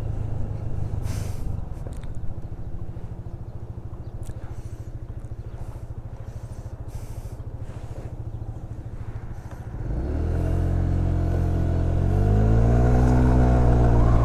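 Honda SH125 scooter's single-cylinder four-stroke carburetted engine, running steadily and very quietly at first. About ten seconds in it gets louder and the pitch climbs as the throttle opens and the scooter accelerates.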